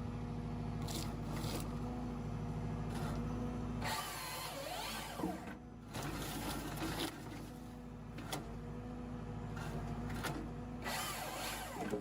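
Tractor diesel engine running steadily while working a tractor-mounted Hypro 755 harvester head, with repeated knocks and clatter of logs being handled and a whine that rises and falls about four seconds in.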